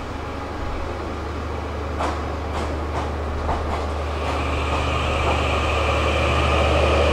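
The E001-series TRAIN SUITE Shiki-shima luxury train's cars rolling slowly past as it departs, wheels clicking over rail joints over a steady low hum. From about four seconds in, a high steady whine comes in and the sound grows louder as the last cars approach.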